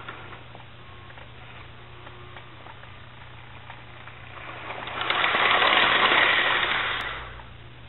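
HO-scale model J-class steam locomotive running on its track: the whir of its small electric motor and the rattle of wheels on rail swell up about four seconds in, are loudest for a couple of seconds as it passes close, then fade. A steady low hum sits underneath throughout.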